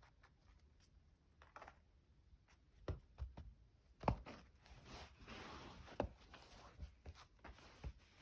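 Scattered light knocks and taps with a brief soft rustle, the handling noise of a kitten playing with flowers.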